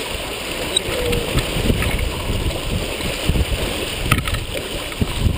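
Water rushing and splashing along the hull of a Beneteau First 235 sailboat moving fast under sail in about 20 knots of wind, with wind buffeting the microphone in irregular gusts.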